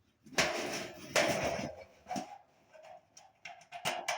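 Satellite dish hardware being handled and fitted: two short rattling scrapes in the first second and a half, then a few light clicks and ticks.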